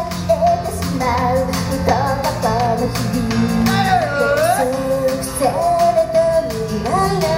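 Live J-pop idol song: several female voices singing into microphones over amplified backing music with a steady beat.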